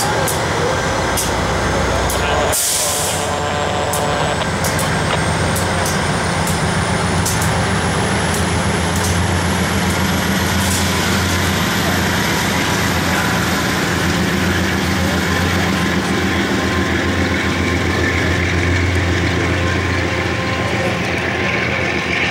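Diesel locomotive pushing a passenger train away from the platform, its engine running under power with a steady low drone. A short hiss of released air comes about two and a half seconds in. Clicks of wheels over rail joints and a faint high whine rising slowly in pitch run under the drone.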